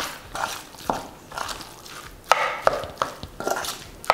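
Metal spoon mixing raw minced pork and chicken with spices in a stainless steel bowl: irregular wet strokes, two or three a second, with sharp clicks of the spoon against the bowl.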